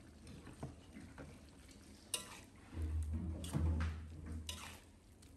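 Metal spatula stirring wet mustard greens and carrots in an aluminium wok, with a few sharp clinks of metal on metal and a low rumble near the middle.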